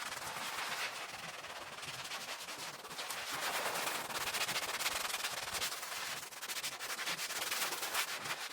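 Rapid, continuous scrubbing strokes on terracotta floor tiles, wiping off excess grout.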